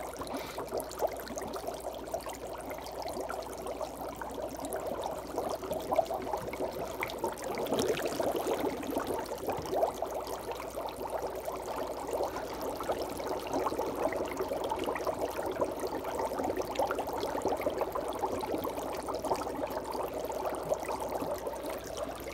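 Dry ice bubbling in water, a steady churning fizz of fine bubbles as the frozen carbon dioxide turns to gas.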